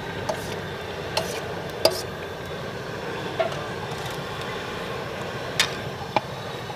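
Steady rushing background noise with several short, sharp knocks a second or two apart, as a long steel ladle knocks against a large aluminium cooking pot of chicken korma.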